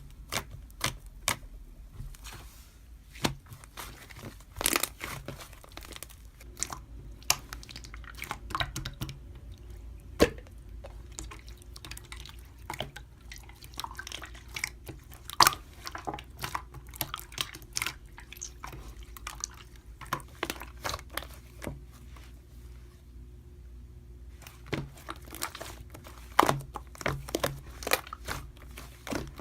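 Hands kneading and pressing slime, with irregular sharp clicking and popping as air pockets burst and squishing, crinkly sounds between.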